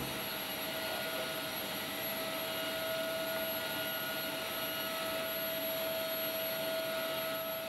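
Steady rushing air noise with a constant mid-pitched whine and a faint high whine, heard inside a C-5 Galaxy's flight deck while the aircraft's systems are running.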